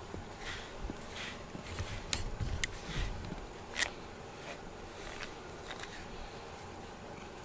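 A pink rubber grooming brush stroking through a cat's fur, a soft scratchy swish repeated about once a second, with a few sharper clicks in the middle.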